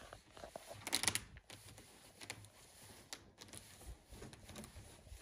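Hands pressing and smoothing foil-faced butyl flashing tape onto a wooden trim board: faint rustling and crinkling, with a brief louder crinkle about a second in and light ticks after it.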